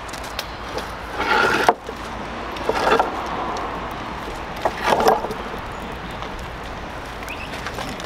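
Tennessee flagstone slabs scraping and knocking against one another as slabs are pulled off a stack and handled. There are three short scrapes, about a second and a half to two seconds apart, over steady background noise.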